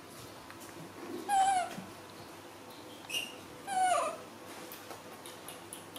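Baby macaque giving high, downward-sliding cries: two longer calls about a second and a half and four seconds in, with a short, higher call between them.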